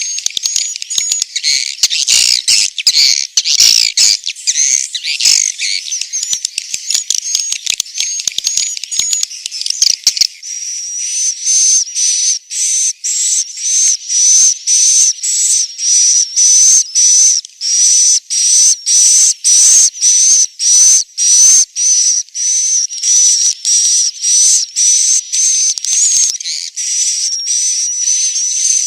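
Swiftlets' roosting call, the 'suara inap' used in swiftlet houses: high, hissing twitters. For about the first ten seconds the calls overlap in a dense chatter, then they settle into a steady run of separate chirps, about two a second.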